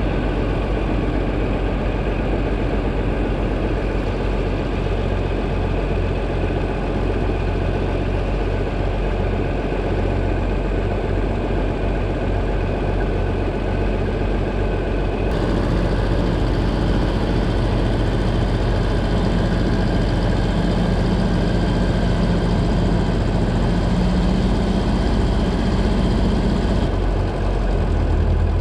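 Small Ford tractor engine running steadily while the tractor is maneuvered. Its sound shifts abruptly about halfway through and again near the end.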